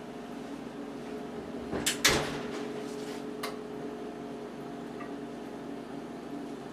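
Electric range's oven door swung shut with a single clunk about two seconds in, followed by a small click, over a steady low hum.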